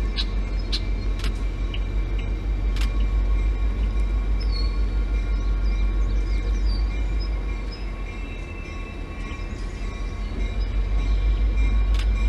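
Diesel locomotive approaching slowly, its engine a low, throbbing rumble that dips briefly about eight seconds in and then grows louder. Birds chirp now and then.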